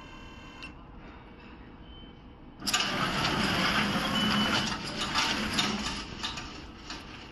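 Remote-controlled mower machinery. A steady tone cuts off within the first second. About two and a half seconds later, loud mechanical noise starts suddenly, then eases off near the end.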